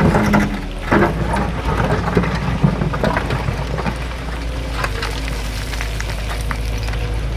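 Heavy diesel machinery running steadily with a low engine hum, with scattered clanks and rattles of metal and stone over it, most of them in the first few seconds.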